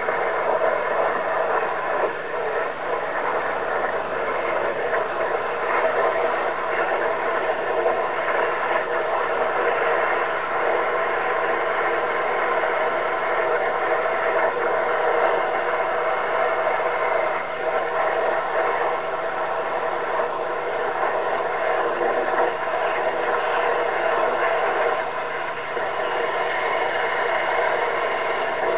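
Engine-driven pressure washer powering a sewer jetter, running steadily under load while the jet nozzle works water up a clogged sewer line: an even, unbroken mechanical noise with several steady hum tones.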